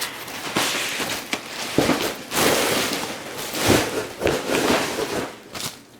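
Bubble wrap and plastic packaging rustling and crackling as a rifle is worked out of it, with a couple of dull knocks about two and four seconds in.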